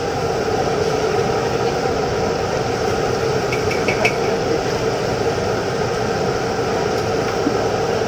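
Chicken pieces deep-frying in a large wok of bubbling oil over an LPG gas burner: a loud, steady sizzle and burner roar. A few light clicks come about three and a half to four seconds in.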